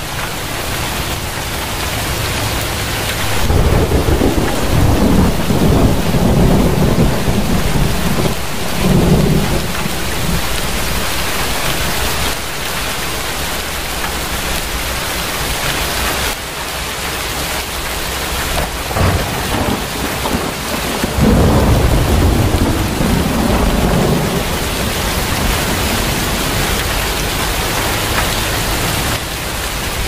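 Steady rain with rolling thunder. The thunder rumbles twice: once from a few seconds in for about six seconds, and again about two-thirds of the way through.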